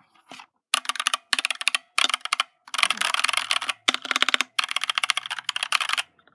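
Fast typing on a Dierya DK61E 60% mechanical keyboard with Gateron optical red switches and PBT double-shot keycaps: rapid key clicks in several bursts, with short pauses between them.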